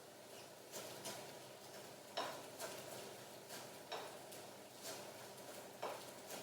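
Kitchen utensil knocking and clicking against cookware, a faint irregular series of sharp taps, some ringing briefly, over a low steady hiss.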